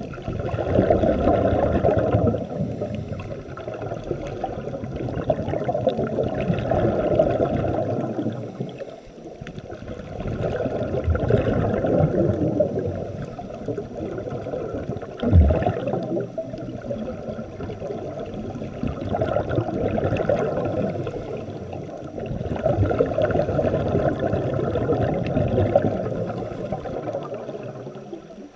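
Underwater bubbling and rumble of scuba divers' exhaled air from their regulators, swelling and fading every few seconds with each breath, with one short thump about halfway through.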